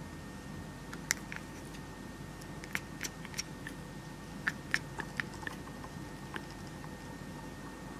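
Domestic cat chattering: a dozen or so short, sharp clicking chirps from its vibrating jaws, coming in loose clusters. It is the sound a cat makes when fixed on a bird or prey it can see but can't reach, a sign of intense excitement or frustration.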